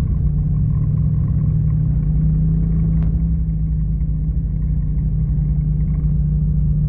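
Side-by-side UTV engine running at a steady low drone while the machine rolls along a dirt trail, heard from on board.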